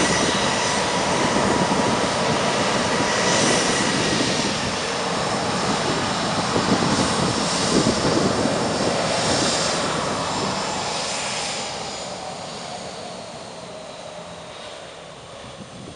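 Boeing 737 jet engines running at taxi power as the airliner pulls away from its stand, with a steady high whine over the engine noise. The sound fades over the last few seconds as the plane moves off.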